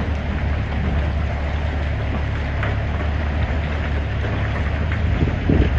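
Honda Gold Wing motorcycle under way: a steady low engine drone under a constant rush of wind noise on the microphone.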